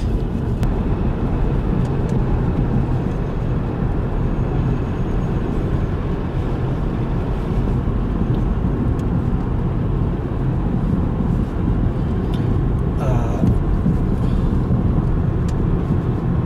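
Steady low rumbling noise, with faint voices in the background about two-thirds of the way in.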